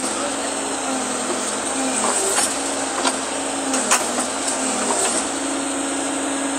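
Horizontal directional drilling rig running, its engine giving a steady mechanical noise with a held hum that dips lower in pitch for a few seconds in the middle while the drill rod is driven into the ground. A few sharp clicks come between about two and four seconds in.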